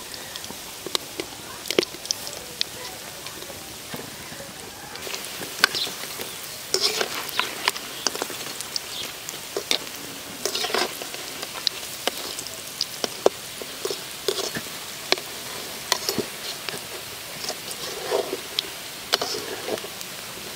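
Batter fritters deep-frying in a wok of hot oil: a steady sizzle, with scattered sharp clicks and scrapes as a metal slotted spoon stirs and turns them against the pan.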